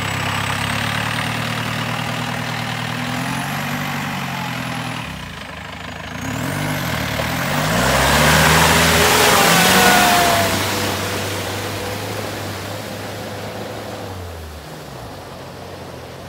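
Modified open jeep's engine running as it drives through a flooded, muddy field; about six seconds in it revs up and down while the big mud tyres churn and spray water and mud, the loudest part. The engine then settles to a steady note and fades as the jeep moves away.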